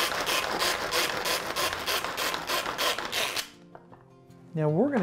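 Manual pull-cord food chopper chopping onion: a rapid run of whirring, ratcheting strokes, about four or five a second, as the cord is pulled again and again to spin the blades, stopping a little over three seconds in.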